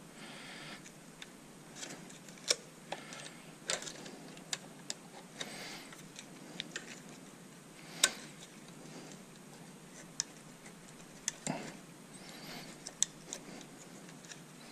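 Irregular small clicks and ticks with faint rustling as gloved hands work a cartridge fuse out of its holder among the wiring inside a Tesla Model S DC/DC converter; the sharpest click comes about eight seconds in.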